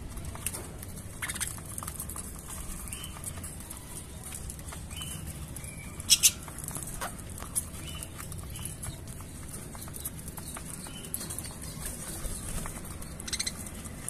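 Budgies pecking and cracking seed in a plastic feed bowl: a running patter of small clicks and taps, with short faint chirps every few seconds and a sharper pair of clicks about six seconds in.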